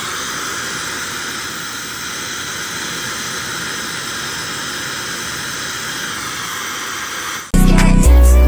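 Dyson Supersonic-type hair dryer running steadily: a constant rush of blown air with a thin high whine from the motor. It stops about a second before the end, when music comes in.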